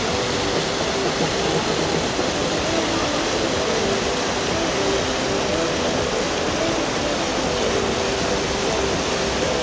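Whitewater rapids rushing steadily: a fast, high river churning over rocks and through the slalom course.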